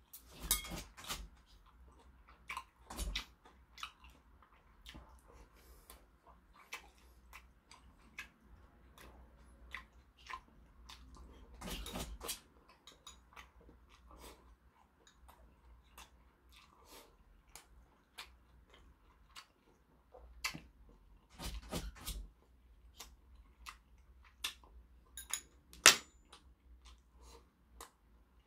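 Close-up eating sounds: a man chewing mouthfuls of rice and kimchi stew, with chopsticks clicking against the bowls in scattered sharp clicks. The sharpest click comes about 26 seconds in.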